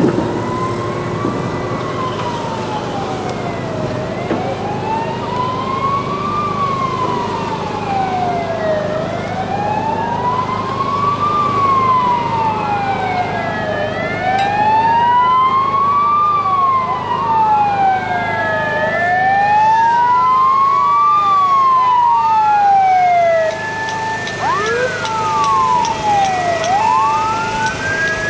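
Emergency vehicle sirens wailing in a slow rise and fall about every five seconds. From about halfway a second siren joins out of step, and near the end the wail gives way to quicker sweeps and a steady two-tone.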